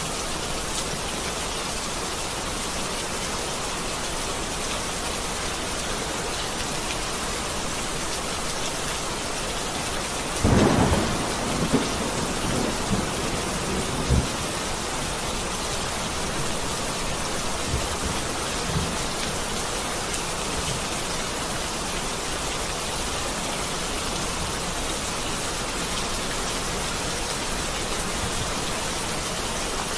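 Steady heavy rain with a clap of thunder about a third of the way in, followed by a few rolling rumbles over the next several seconds.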